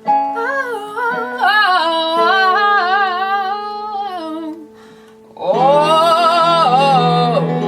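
Music: a woman singing long, wordless held notes over acoustic guitar, with a short break about five seconds in before a final sustained note.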